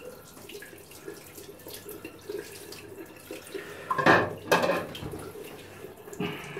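Water splashing in a bathroom sink as a safety razor is rinsed: a faint trickle, then two loud splashes about four seconds in.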